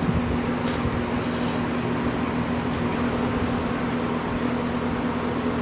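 Steady machine hum with one constant low tone, even in level throughout.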